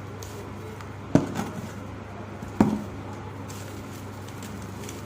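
Two sharp crunches of a dry, hardened clump of ash, sand or charcoal crumbling as it is pressed, about a second and a half apart, each trailing off in a brief crackle, over a low steady hum.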